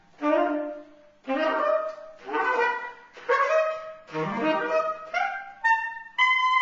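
Saxophone playing short, broken-off phrases of a few notes with brief gaps between them, some notes sliding upward, then a long steady high note near the end.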